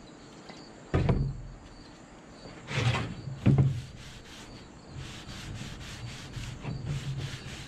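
A paper towel rubbing tung oil along a bare wooden tool handle in repeated back-and-forth strokes, with a few sudden knocks about one and three seconds in as the handle is shifted on the table.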